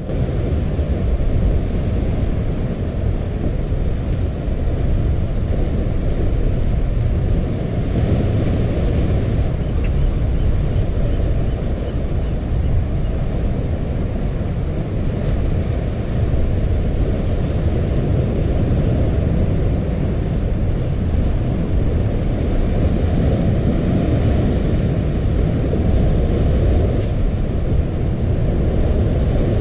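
Wind buffeting the microphone in a steady low rumble, over the wash of ocean surf breaking against the cliffs.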